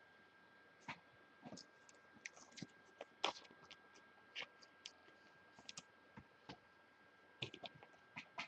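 Faint, irregular light clicks and taps of small objects being handled on a table, scattered with near silence between.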